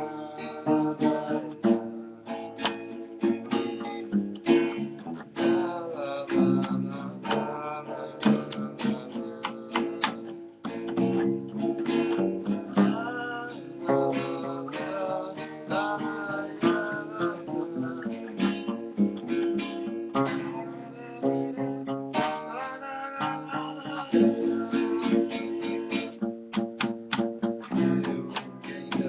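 Acoustic guitar (violão) strummed and plucked in a samba rhythm, with an acoustic bass guitar (baixolão) playing underneath.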